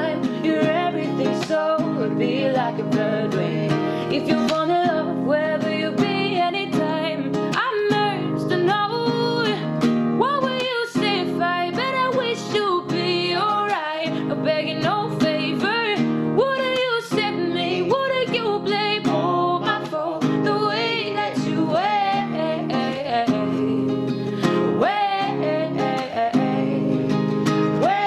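A woman singing a melody over her own strummed acoustic guitar.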